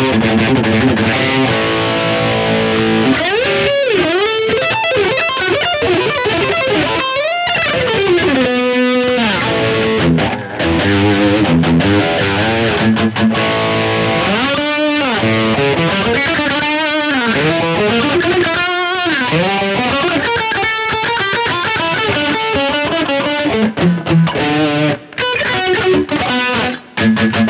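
Electric guitar played through a digital modeler's Marshall Plexi-style amp preset with chorus and less gain, sustained chords and lead lines with several wide pitch swoops up and down. The playing stops near the end.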